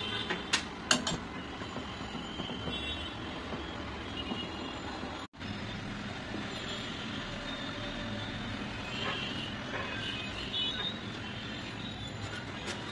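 A few sharp metallic clinks within the first second, as a spoon knocks against a stainless-steel pot of custard, over a steady low rumble and hiss that cuts out for an instant about five seconds in.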